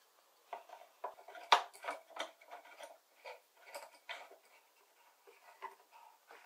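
Small irregular clicks and knocks of a plywood clamp and its bolt being handled and seated against a power planer's body and a plywood base, the sharpest knock about a second and a half in.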